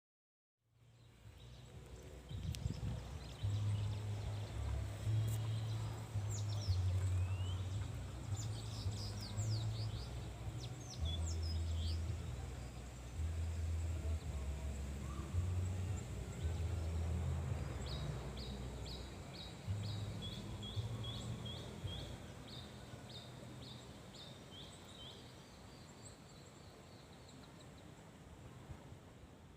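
Birds chirping, with a quick run of short repeated high notes in the second half, over a low rumble that fades toward the end.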